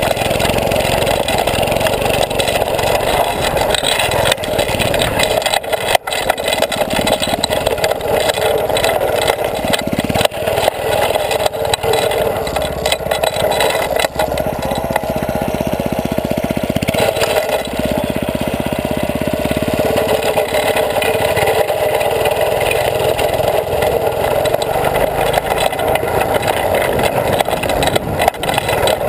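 Go-kart's small gasoline engine running as the kart drives, heard close up from a camera mounted on the kart; the engine note shifts a little partway through as the throttle changes.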